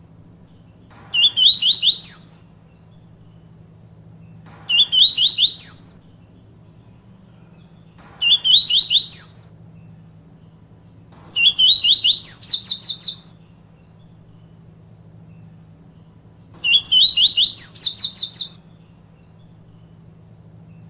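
Papa-capim (Sporophila seedeater) singing its "tui tui viviti" song: five short phrases a few seconds apart, each a quick run of rising notes climbing into a higher rapid trill. A faint steady low hum lies underneath.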